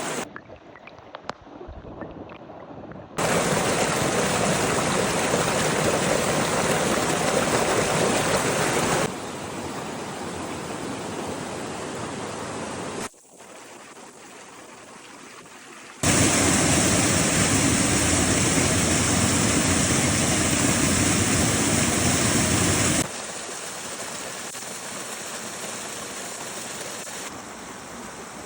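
Mountain creek water rushing, a steady noise without tones that jumps between louder and quieter at several hard cuts, faintest in the first three seconds and loudest for about seven seconds past the middle.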